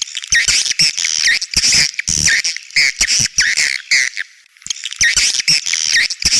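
Edible-nest swiftlet calls: dense, high twittering chirps repeated several times a second, easing off briefly about four seconds in. This is a swiftlet-house 'outside sound' lure call, the kind played outside a swiftlet house to draw birds in.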